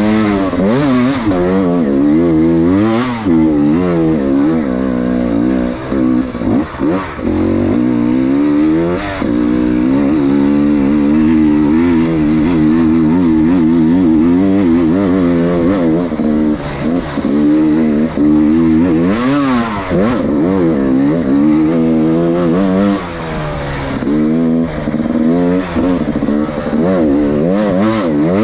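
Enduro motorcycle engine revving up and down continually as the throttle is opened and closed over rough trail. Occasional brief knocks and clatter from the bike running over the ground.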